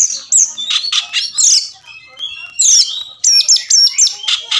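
Oriental magpie-robin (kacer) singing: quick phrases of varied whistles, slurred notes and sharp chips, with a short pause about two seconds in.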